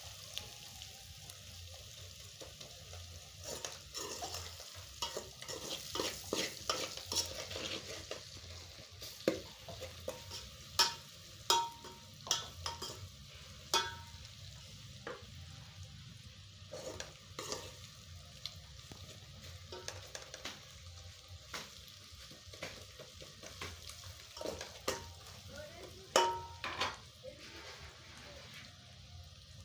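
A metal spoon stirring and scraping food in an aluminium pot, clinking irregularly against the pot's side, over a steady frying sizzle. The sizzle is stronger in the first several seconds.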